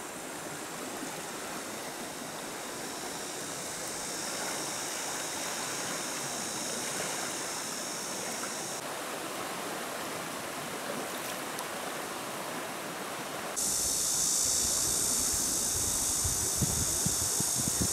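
Rushing water of a fast-flowing river, a steady noise that gets suddenly louder about two-thirds of the way in.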